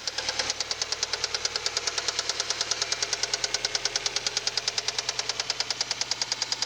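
Mazda 626 engine running with a loud, rapid, evenly spaced knock from inside the engine, likened to a woodpecker. The owner fears something will break loose.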